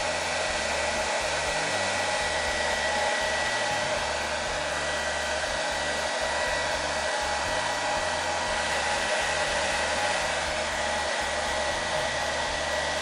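Hand-held hair dryer running steadily, blowing air into a laptop's cooling vents, with a thin steady high whine over the rush of air.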